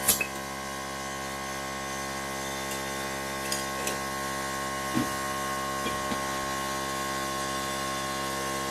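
A steady mechanical hum with a constant high whine, broken by a few faint clicks and knocks.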